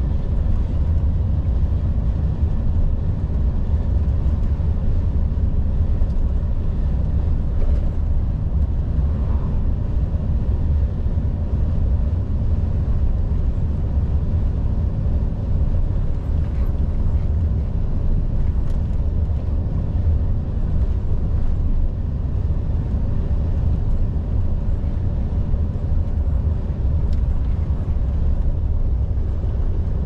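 Volvo FH 460 truck's 13-litre six-cylinder diesel running steadily on the road: an even, low drone that holds one pitch throughout.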